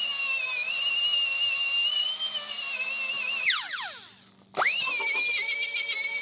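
High-speed rotary power tool running with a steady high whine. About three and a half seconds in it is let off and winds down to a stop, then it is triggered again and spins straight back up.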